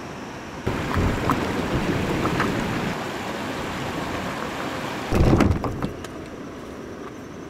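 A kayak towed by a wading angler through shallow riffle water: the river rushing and splashing around the hull and legs, with a few sharp ticks and a short, heavy scrape or bump a little past five seconds in as the kayak reaches the rocks.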